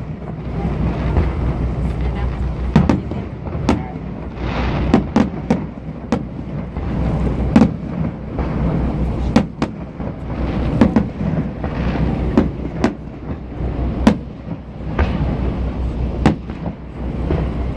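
Fireworks exploding: a string of sharp bangs at irregular intervals, several close together, over a steady low rumble.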